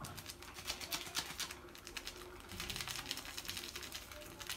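Small foil seasoning sachet crinkling in the hands as it is fiddled with and worked open: a rapid, irregular run of small crackles.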